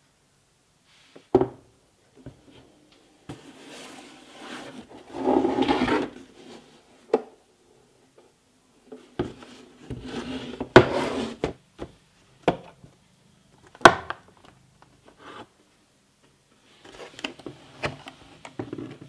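A hard plastic tool case is handled on a wooden workbench: it scrapes and rubs against the wood, with sharp plastic clicks and knocks from its latches and lid and from the cordless drill being lifted out. The loudest click comes about two-thirds of the way through.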